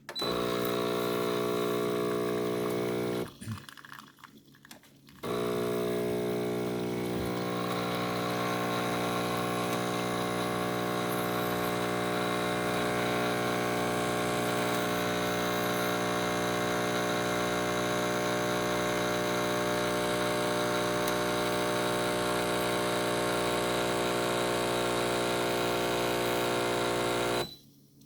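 Gevi espresso machine's pump running steadily as it brews a shot, a loud buzz that stops for about two seconds a few seconds in, then runs again until it cuts off near the end.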